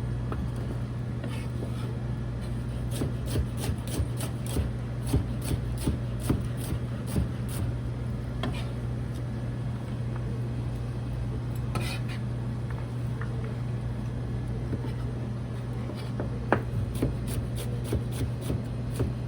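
Kitchen knife tapping on a cutting board in runs of quick chops, about two a second, while vegetables are cut up, over a steady low hum.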